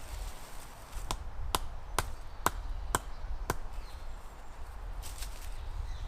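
Six sharp strikes, about two a second, each with a short ringing tone, like a tool hitting wood or metal.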